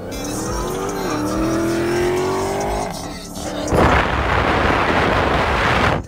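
A car's tires squealing in a slowly rising tone as the engine revs, then from nearly four seconds in a loud, hissing rush of noise, as in a burnout.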